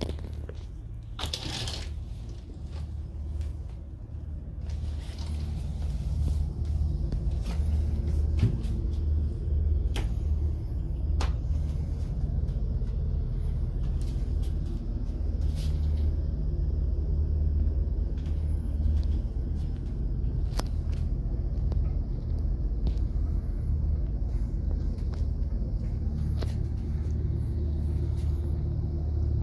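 Steady low rumble of a cruise ship's engines, louder from about five seconds in, with scattered clicks and knocks.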